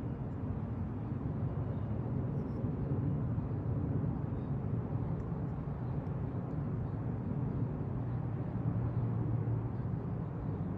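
Steady low outdoor rumble, like distant traffic, with a few faint ticks about two seconds in.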